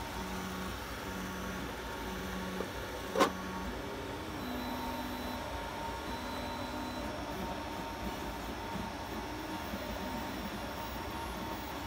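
Brass HOe-scale Shay model locomotive running in place on roller stands, its small motor and gearing making a steady whir. A single sharp click about three seconds in, as the clear acrylic display cover is set down on the base.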